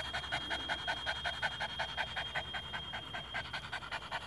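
A dog panting rapidly and evenly, with short, regular breaths.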